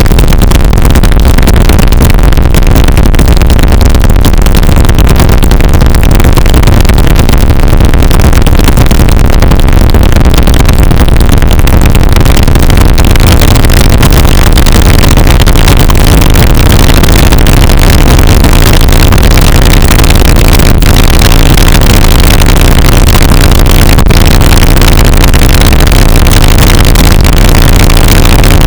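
Homemade noise wall machine, five motors on a welded steel frame, running flat out: a dense, unbroken wall of harsh noise at full level with a heavy low rumble underneath.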